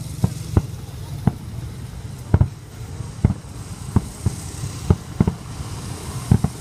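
Fireworks going off: about a dozen sharp bangs at irregular intervals over a steady low background rumble.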